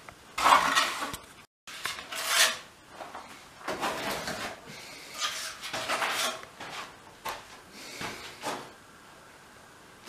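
Irregular clatter and knocking of hard objects being handled, in a string of short noisy bursts spaced unevenly.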